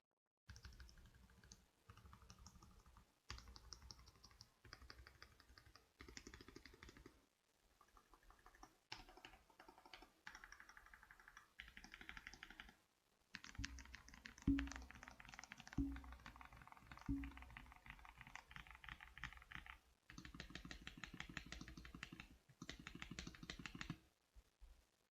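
Typing on a modded Akko 5075S V2 mechanical keyboard, rapid creamy keystrokes in several short takes that start and stop abruptly. In the middle, three heavier low keystrokes land about a second apart.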